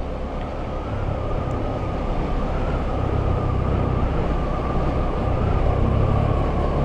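Wind rush and riding noise of a moving motorcycle, heard through a microphone inside the rider's helmet: a steady low rumble under a rushing hiss, growing gradually louder.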